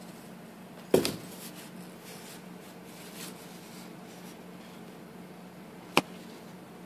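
A cat shifting in a cardboard box: a sharp knock about a second in that trails into faint scuffing, and a short click near the end, over a steady low hum.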